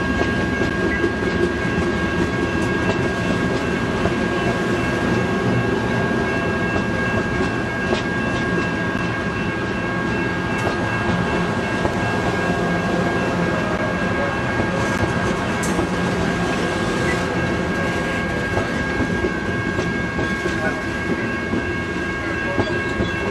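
Stainless-steel passenger cars of a long circus train rolling past, steel wheels running on the rails, with a steady high whine over the rumble.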